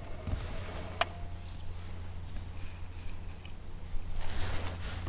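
Goldcrest giving very high, thin calls in quick runs, once near the start and again from about three and a half seconds in. A single sharp click comes about a second in, and a short burst of clicks and rustle comes near the end.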